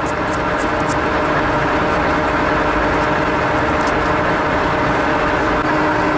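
Metal lathe running steadily: an even mechanical hum with several steady tones and a few faint light ticks.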